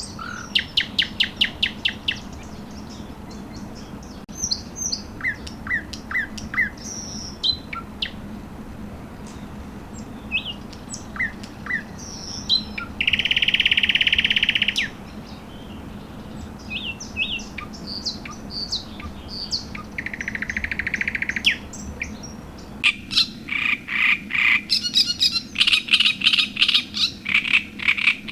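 Several songbirds singing at dawn: scattered chirps and whistles, a buzzy trill heard twice, and a fast run of loud repeated notes near the end.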